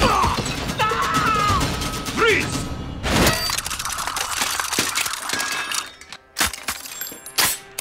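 Action-movie fight soundtrack: music under shouts, thuds and crashing impacts, with a big hit about three seconds in and a few sharp clicks and hits near the end.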